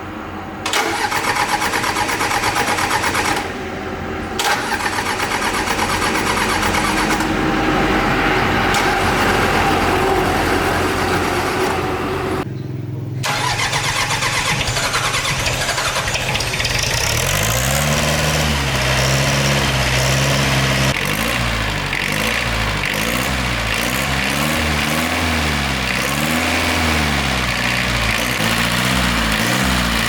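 Tractor engine being turned over on its starter, one short try and then a longer one, catching about thirteen seconds in and running, its speed rising and falling as it is revved.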